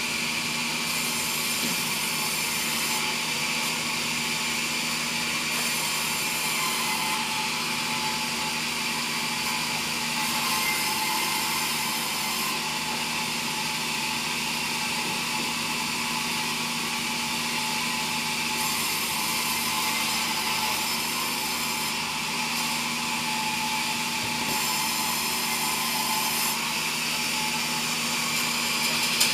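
Vertical band sawmill running steadily, its blade sawing lengthwise through a log, a constant machine hum with a steady whine.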